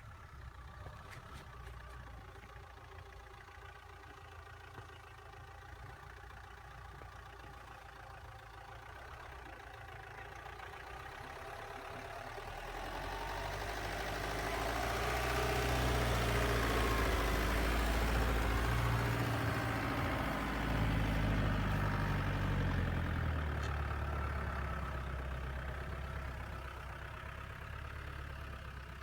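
Mitsubishi Pajero's engine running as the 4x4 moves off-road. It grows louder over several seconds, is loudest a little past halfway with a wide rushing noise over the engine sound, then eases off toward the end.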